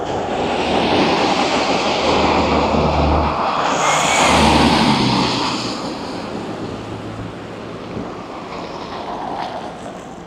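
A motor vehicle passing close by: engine hum and tyre noise swell to a peak about four to five seconds in, then fade away.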